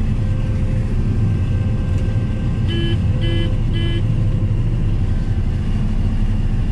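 Combine harvester running steadily, its 7.6-litre John Deere diesel engine droning as heard inside the cab. Near the middle, three short electronic warning beeps sound about half a second apart.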